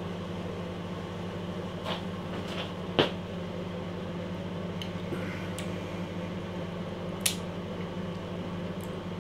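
Microwave oven running with a steady hum, with a few small clicks and one sharper knock about three seconds in as beer is sipped from a glass.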